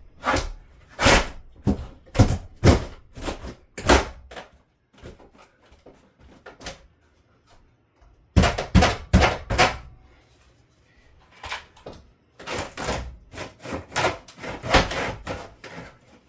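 A run of sharp knocks and thuds in a small room, in three bursts with short pauses between, from demolition work taking apart a closet.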